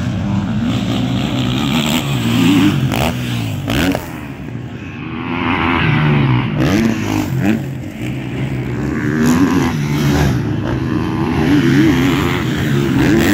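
Motocross dirt bikes racing on a dirt track, engines revving up and dropping back in pitch again and again as the bikes accelerate and back off.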